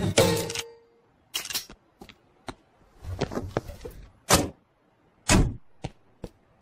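Car doors on police patrol cars opening and thudding shut: a string of clicks and thumps, with the loudest, heaviest slam about five seconds in.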